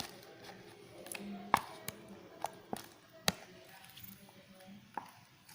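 Slime mixture being stirred in a container: the stirrer clicks and taps against it, about six sharp, irregular taps.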